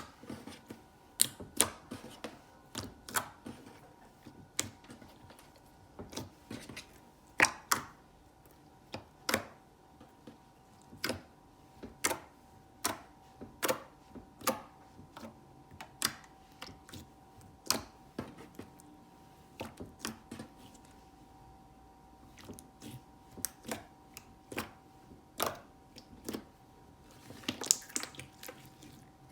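Slime being pressed and handled, giving sharp sticky pops and clicks at irregular intervals, roughly one every second, over a faint steady hum.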